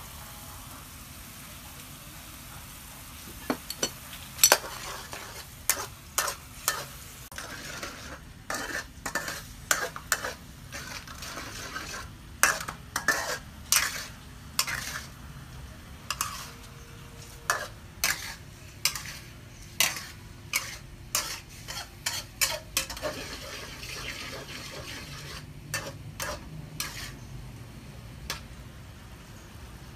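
A utensil stirring food in a cooking pan, making sharp, irregular clacks several times a second over a faint steady hiss. The clacks start a few seconds in and thin out near the end.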